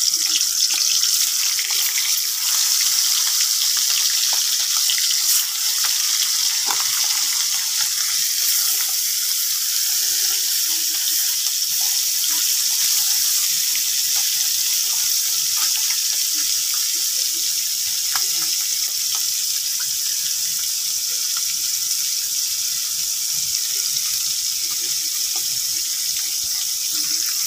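Tengra fish frying in hot oil in a karai: a steady sizzle with scattered small pops and crackles.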